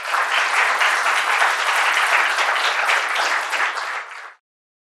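Audience applauding at the end of a talk, steady clapping that cuts off suddenly a little over four seconds in.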